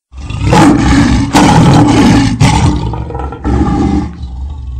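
Big-cat roar sound effect of an animated intro, loud, coming in several surges about a second apart and fading toward the end.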